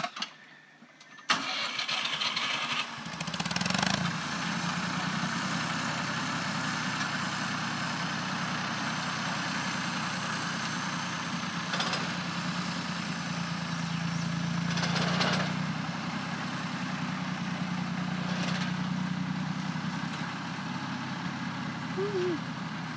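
Small farm tractor's engine running steadily, coming in suddenly about a second in, while the tractor moves a small shed across the field.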